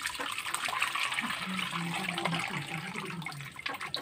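Wet squelching and trickling of hands squeezing grated coconut soaked in hot water, pressing out coconut milk.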